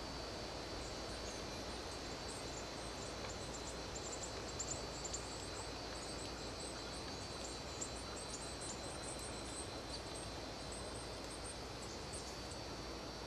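Outdoor bush ambience: an even hiss with many faint, short, high chirps scattered through it and a steady thin high tone.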